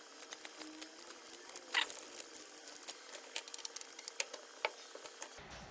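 Faint, scattered clicks and ticks of small parts and hand tools being handled on an amplifier circuit board, with a short scrape about two seconds in, as two fixed resistors are fitted in place of the bias-adjust potentiometers.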